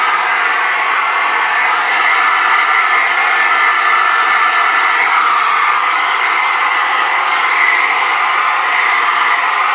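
Hairdryer running steadily, a constant rush of blown air with a humming tone over it.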